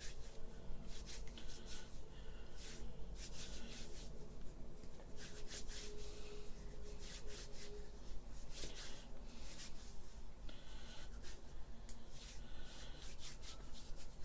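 Hands rubbing together to work sticky bits of fresh pasta dough and flour off the fingers, in repeated irregular rubbing and scraping strokes.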